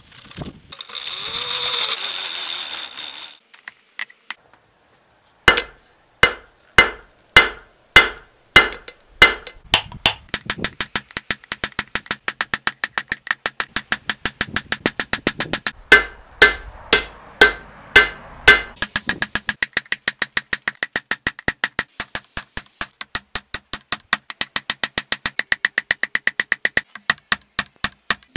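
A hand hammer strikes a red-hot ball peen hammer head on a steel anvil, forging it into a tomahawk head; each blow rings. The blows start about five seconds in at a slow pace, then come several a second with the anvil ringing between them, after a short rustling noise at the start.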